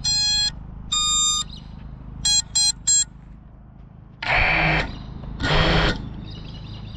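FPV quadcopter on the ground beeping electronically: two half-second beeps, then three short quick beeps, followed by two louder, noisier half-second bursts about a second apart.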